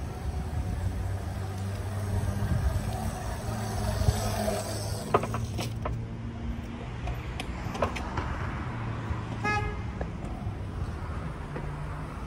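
Razor electric scooter riding past on a concrete sidewalk: the motor's whine and the tyre noise swell and fade about four seconds in, followed by a few sharp clicks. A steady low street-traffic hum runs underneath, and a short horn-like beep sounds near the end.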